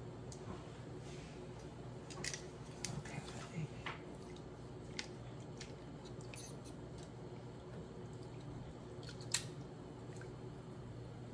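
Long metal tongs clicking against a large metal pot while pushing and turning a wig in dye water, with wet squishing and dripping; one sharper click about nine seconds in. A steady low hum runs underneath.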